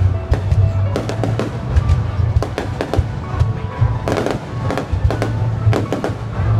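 Aerial fireworks bursting in rapid, irregular succession, with a dense cluster of bangs about four seconds in, over a continuous low rumble.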